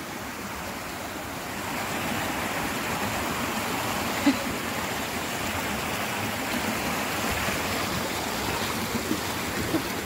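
Small forest stream running and splashing over rocks, a steady rush of water that grows a little louder after about two seconds. A single brief knock about four seconds in.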